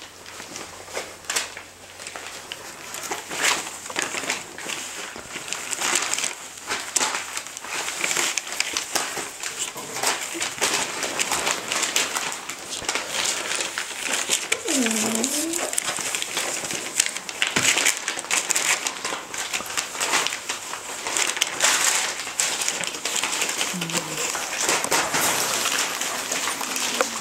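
Steady rustling, crinkling and crackling as Chinese Crested puppies move about and play, with a short whimper that dips and rises again about fifteen seconds in.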